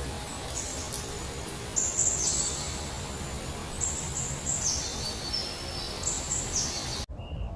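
Small birds calling: short, high-pitched notes that drop in steps, repeated about every second, over a steady low background rumble. The sound cuts off abruptly near the end.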